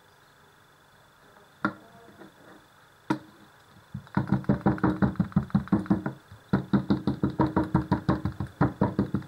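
Large kitchen knife rapidly chopping into a thin chicken breast fillet on a wooden cutting board, about five strokes a second, scoring the meat. Two single knocks come first; the rapid chopping starts about four seconds in, with a brief break near the middle.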